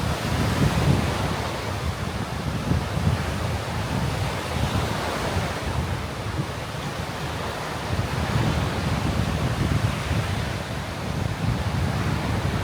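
Surf breaking and washing on a sandy beach, swelling and easing every few seconds, with wind gusting across the microphone in low rumbles.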